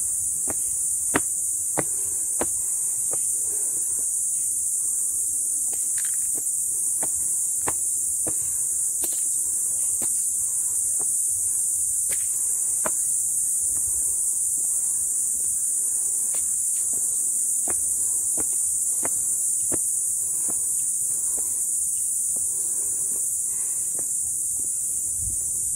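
A steady, high-pitched insect chorus drones without a break, with irregular sharp clicks or taps scattered through it.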